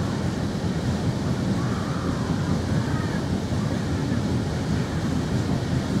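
Wind buffeting the microphone, a steady low rumble, with faint distant carnival sounds underneath.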